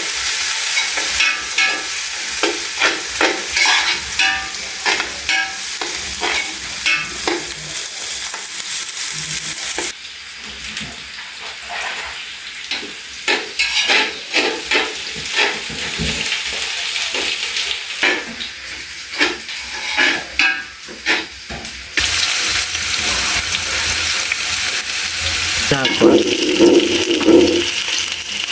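Food frying and sizzling in a pan while it is stirred, with the spoon knocking and scraping against the pan.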